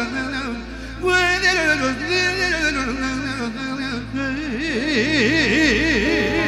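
Live Romanian party-band music: a man sings an ornamented, sliding vocal line through a microphone over the band. From about four and a half seconds in, a wide, fast warbling melody line takes over.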